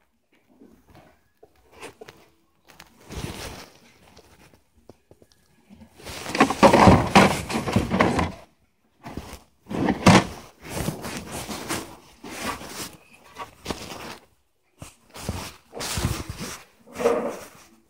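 Plastic tool cases being handled on a wooden shelf: a string of knocks, scrapes and rustling, loudest a third of the way in as a case is set down and slid into place, with more knocks later.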